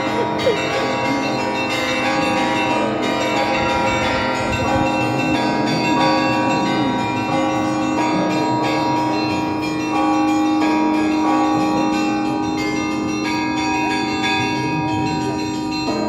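Church bells of St. Isaac's Cathedral ringing a continuous peal: several bells of different pitches struck again and again, their tones overlapping and ringing on.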